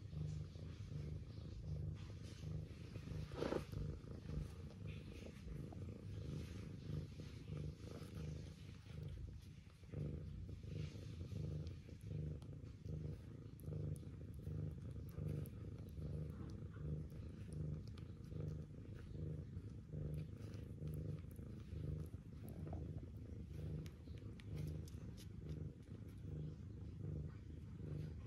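Mother cat purring steadily while nursing a kitten, the purr swelling and easing in a regular slow rhythm with her breathing.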